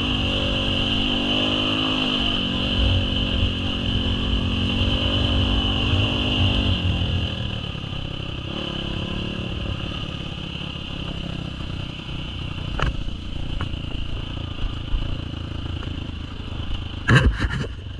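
Enduro dirt bike engine revving up and down as the bike rides over a rough dirt track, then dropping to a lower, quieter running about seven seconds in. A few sharp knocks near the end, the loudest a clatter about a second before the end.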